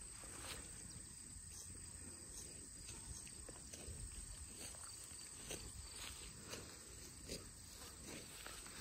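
Cattle grazing: faint, irregular tearing and crunching as grass is ripped off and chewed.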